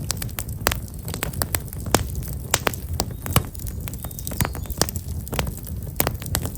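Black locust firewood burning in an open fire, crackling with frequent irregular sharp pops over a steady low rumble.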